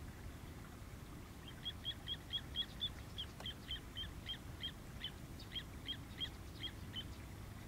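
A rapid series of about eighteen short, high call notes from a small animal, starting about a second and a half in and running for some five seconds, at about four a second at first and slowing slightly. These are not the cattle egret's calls, which are low croaks.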